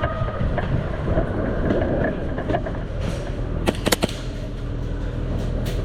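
A few sharp snapping shots from airsoft guns, a quick cluster of three about two-thirds of the way through and one more near the end, over a steady low rumble of movement and background noise.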